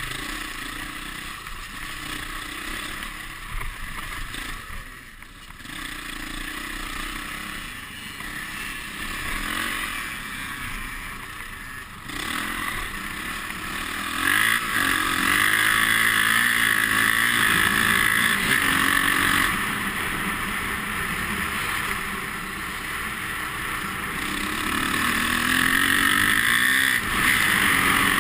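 Dirt bike engine revving up and down while riding off-road. It gets louder from about 14 seconds in, as the bike runs fast across open ground.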